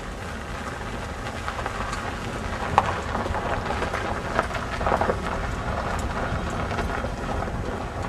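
Steady road and wind noise of a car driving along, with scattered faint clicks and crackles.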